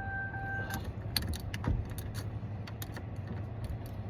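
A steady, quickly repeating electronic warning chime inside the 2005 Chevy Silverado cuts off under a second in. Scattered light metallic clicks and taps follow as tools and keys work at the steering column.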